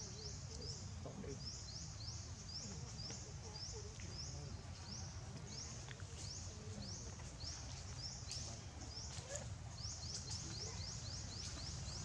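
Outdoor ambience: a high chirp repeated about three times a second in long runs with short pauses, over a low steady rumble.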